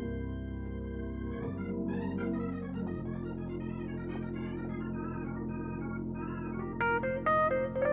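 Hammond organ playing: a held chord over a sustained bass, then a long run of quick notes in the upper register. About a second before the end, louder, sharply struck piano-like keyboard notes come in.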